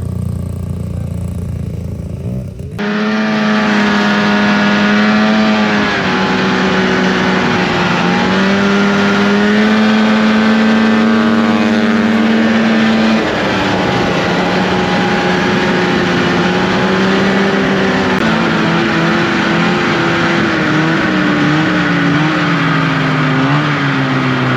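Vintage snowmobile engines running under way, pitch holding for stretches and then shifting up and down with the throttle. About three seconds in, the sound jumps to a louder, closer engine.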